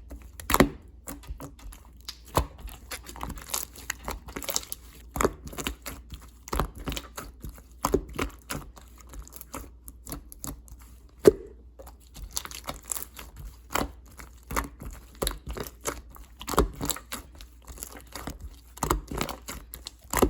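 Clear slime being squished and pressed by hand, giving irregular sticky clicks and pops, with a loud pop about eleven seconds in.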